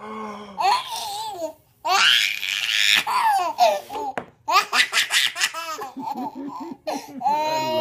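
Baby laughing hard: high-pitched belly laughs in several long bursts with short breaks between them.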